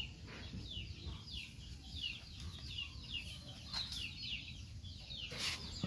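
Birds chirping: a steady run of short, high, falling peeps, about three or four a second. A brief rustle sounds near the end.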